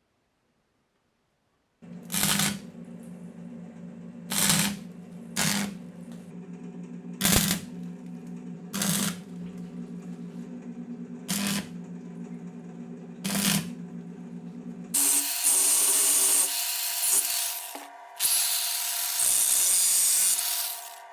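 A workshop power tool running with a steady hum, broken by about seven short, harsh bursts as it bites into the work, then two longer stretches of loud, hissing cutting or grinding in the last few seconds.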